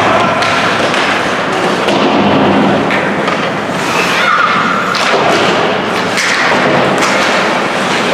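Ice hockey game sound in an indoor arena: repeated thuds and knocks of the puck and players against the boards and glass, over a steady clatter of sticks and skates on the ice. A few short shouts are heard about halfway through.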